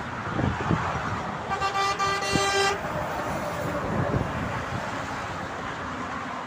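A vehicle horn sounds once, a single steady blast of a little over a second, over the rush of passing motorway traffic.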